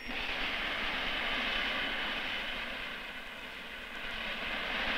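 Portable gas-turbine fire pump running with several hose jets spraying: a steady rushing hiss.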